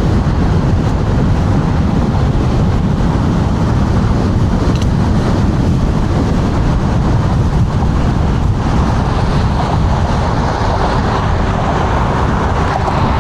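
Strong wind buffeting a clip-on wireless microphone while riding an electric scooter at speed, a loud, steady rumble heaviest in the low end.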